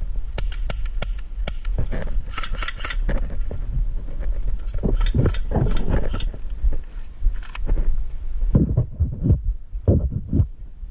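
Airsoft guns and gear: scattered sharp clicks and snaps, with a tight cluster about two seconds in and more near the middle, over a steady low wind rumble on the microphone. Dull low thumps follow near the end.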